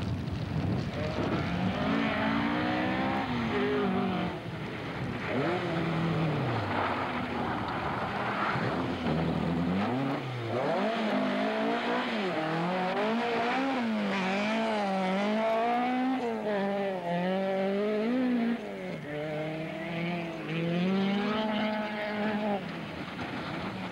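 Rally car engine revving hard through the bends and gear changes, its pitch rising and falling again and again.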